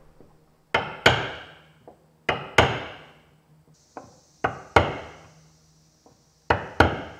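Wooden caulking mallet striking a steel caulking iron to set cotton caulking into the plank seams of a wooden boat hull. Four double taps, a tap and a second tap each time, about two seconds apart.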